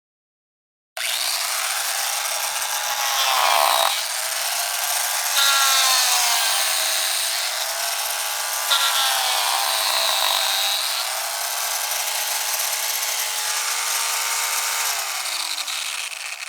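Roto saw (rotary spiral-cut saw) starting abruptly about a second in and running with a high motor whine over a hissing cutting noise. Its pitch sags and recovers three times as it cuts, and near the end the pitch falls as it winds down.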